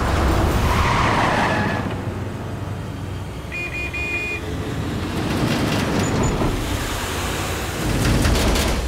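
Cartoon car engine rumbling as a station wagon speeds away, loudest at the start and again near the end. About three and a half seconds in there is a brief high two-note tone.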